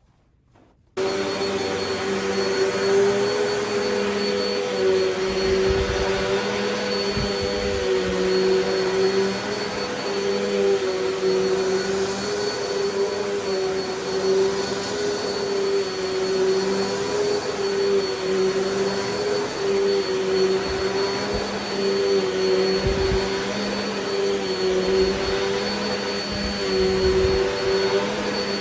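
Vacmaster UC0501 bagless upright vacuum cleaner switching on about a second in, then running steadily. Its motor whine dips slightly in pitch every couple of seconds, with a few short low bumps.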